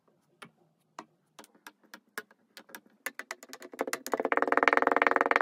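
Kinetic sand crackling as a wooden rod presses chunks of it down into a glass. Scattered faint crackles at first, growing into a dense, louder, fast crackle from about three seconds in as the sand is squashed flat.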